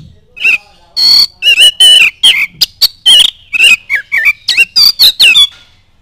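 Male Oriental magpie-robin singing a loud, rapid run of varied whistles and chirps that slide up and down, starting about half a second in and stopping about half a second before the end.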